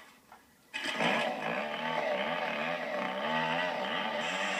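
Petrol chainsaw engine starting up under a second in and then running, its pitch wavering up and down, heard through a television speaker.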